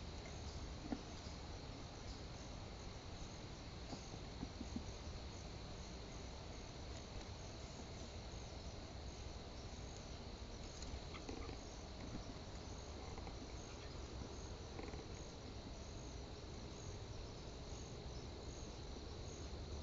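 Insects trilling steadily: a continuous high buzz with rapid short chirps above it, over a low background rumble. A few soft taps sound about a second in and again around four and a half seconds in.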